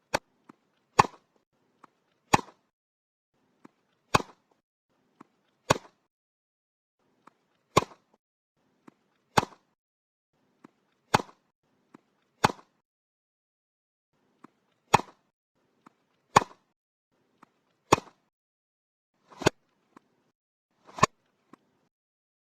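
Tennis ball struck by a racket, again and again: about fourteen sharp hits, roughly one every one and a half seconds, each with a fainter tap or two close by.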